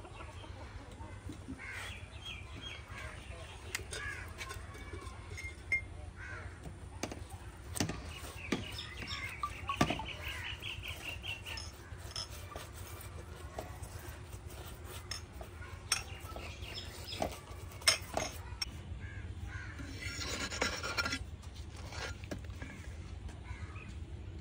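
Birds calling now and then in the background, with scattered knocks and clinks of cooking utensils over a low steady hum.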